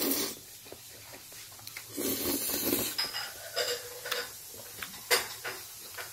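Slurping up a mouthful of jjajang instant noodles, twice, about two seconds apart. Then a few light clicks of a metal utensil against the plate.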